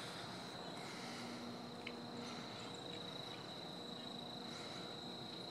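Crickets trilling steadily in one high, even tone, with a faint low hum coming and going underneath.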